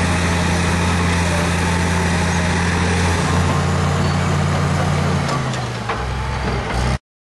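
Caterpillar D7G bulldozer's six-cylinder diesel engine running steadily, its pitch stepping down a little after about three seconds and again past five seconds as the revs fall. The sound cuts off suddenly near the end.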